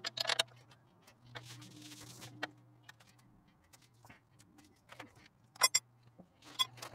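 Scattered light metallic clicks and knocks from a spanner working the stiff camber adjustment bolt on a Land Rover Discovery 3's front lower suspension arm, a little at a time.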